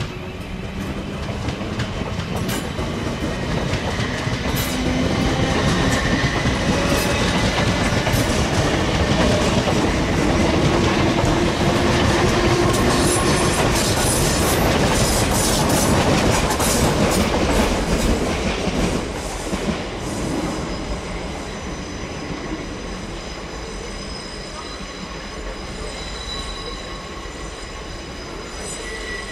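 South Western Railway Class 450 Desiro electric multiple unit coming in over the pointwork: the rumble of wheels on rail grows louder, holds through the middle with a run of clicks over joints and points, then eases. Thin, high wheel squeal sounds through the later part.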